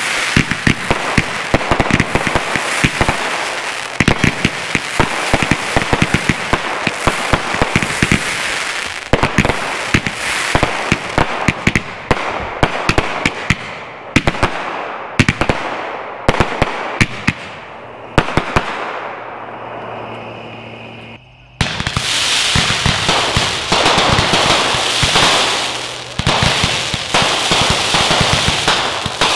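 A rack of Magnus 5-ball roman candles firing together: a rapid, overlapping run of shots and breaks mixed with the crackling of crackling comets, thinning out and fading until about 20 seconds in. After a short lull, a dense barrage of cracks and crackling starts again abruptly.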